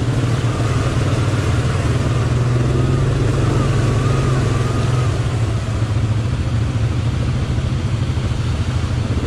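ATV engine running steadily at low trail speed, a constant low hum with no revving.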